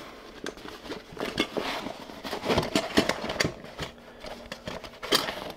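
A metal cook pot being worked down into a stiff cordura canvas pouch: the fabric rustles and scrapes, with scattered small clicks and knocks of metal against it and one louder knock near the end.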